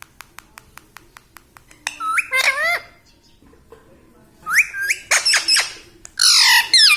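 Pet ringneck parrot squawking: three loud bouts of shrill calls with sharp rising and falling pitch, the harshest near the end. Before them comes a run of quick clicks, about five a second.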